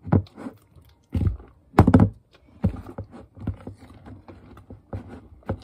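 Fluffy slime being kneaded by hand in a plastic bowl: irregular wet squelches and sticky pulls with a few thuds, the loudest about one and two seconds in.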